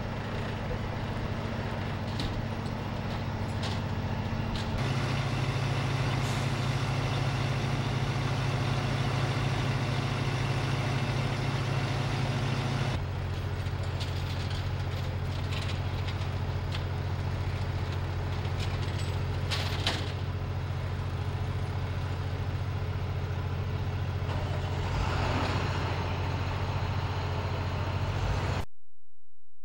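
Heavy truck engines idling steadily, with a few scattered knocks.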